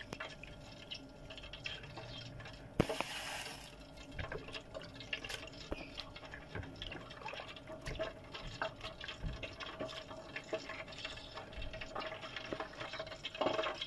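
Pot of bissap (hibiscus) and mint leaves boiling in water: many small bubbling pops and crackles, with a brief hiss about three seconds in.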